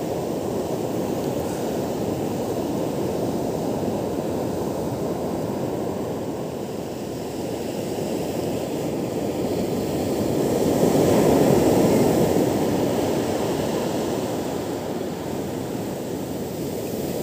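Ocean surf breaking and washing up a sandy beach, a steady rushing noise that swells louder about ten to twelve seconds in as a larger wave comes through.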